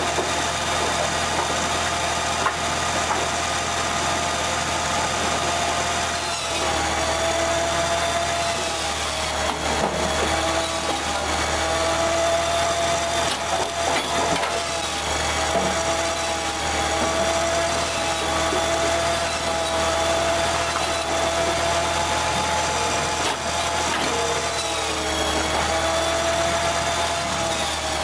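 Band saw on a firewood-processing machine running steadily while cutting blocks of firewood. Its hum sags slightly in pitch several times as wood is pushed into the blade, over a constant rasp of sawing.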